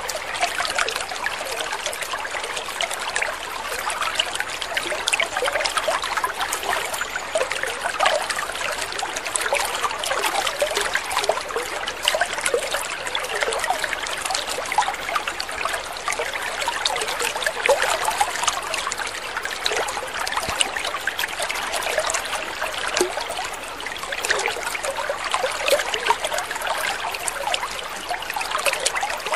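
Water trickling steadily, with a continuous run of small splashes.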